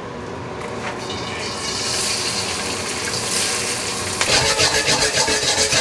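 Hot avocado oil hissing steadily in a wok over a high gas flame. About four seconds in, day-old cooked rice is tipped in and it breaks into a dense crackling sizzle as the rice starts to fry.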